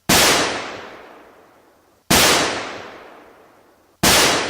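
Three loud, identical bangs like gunshots, evenly spaced about two seconds apart, each ringing out in a long fading echo of about two seconds.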